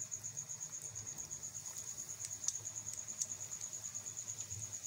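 A cricket chirping steadily in a fast, even pulse, about ten chirps a second, over hot frying oil bubbling with a few faint crackles.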